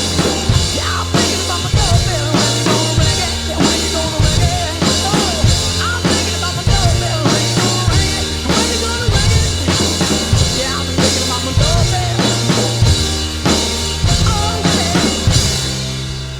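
Rock drum kit groove with quarter-note bass drum hits and a snare backbeat, played along with a song recording of piano and singing; the music fades near the end.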